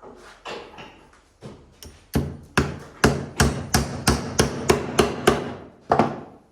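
Hammer striking wood: a few light taps, then a steady run of about ten hard blows at roughly three a second, and one last blow near the end.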